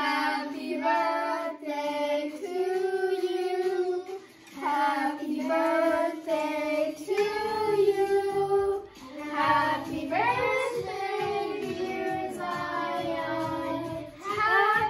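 A group of children singing a song together in unison, in phrases of a few seconds with short breaks between them.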